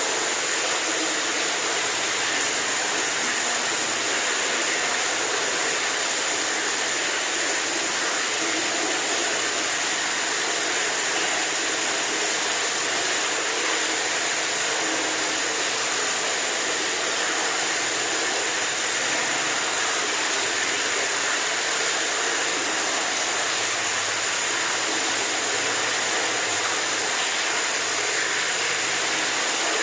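Running water with a steady, even rushing hiss that does not change.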